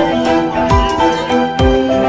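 Background music with held melodic notes over a steady slow beat, a deep thump a little under once a second.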